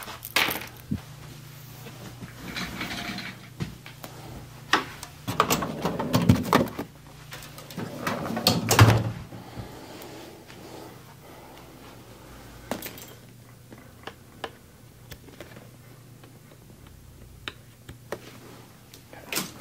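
Scattered small clicks and handling rustles, with a few louder rustling bursts in the first half, over a steady low hum: electrical-stimulation leads being clipped onto dry needles.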